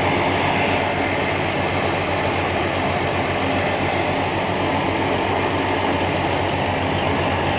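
Tractor-driven wheat thresher running steadily while wheat is fed into it. Its churning mixes with the steady hum of the Massey Ferguson tractor's diesel engine that powers it.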